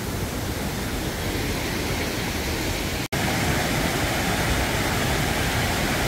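Mountain stream rushing and cascading over boulders in a steady, even roar of water. It breaks off for an instant about halfway through, then carries on slightly louder as a close cascade.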